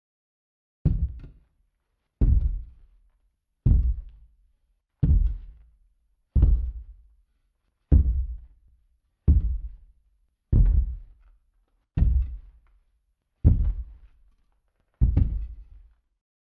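Slow, heavy footsteps: eleven deep, evenly spaced thuds about one every second and a half, each with a short echoing tail.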